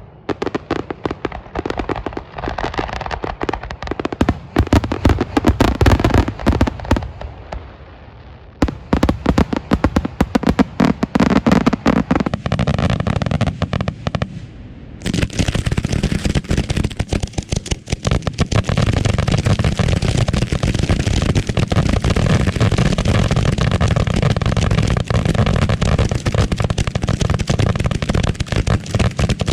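A finale barrage of 2.5-inch aerial firework shells, bursting in rapid, overlapping reports. It thins briefly twice, about eight and fourteen seconds in, then runs as a near-continuous barrage.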